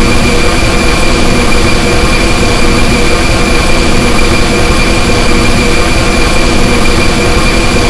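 Synthesized laser sound effect held as a loud, steady, distorted drone with a constant high whine over it, never changing in pitch or level.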